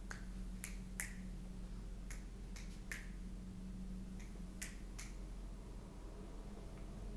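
Sharp clicks from a person's hands fidgeting, about ten in uneven groups of two or three, stopping about five seconds in, over a steady low room hum.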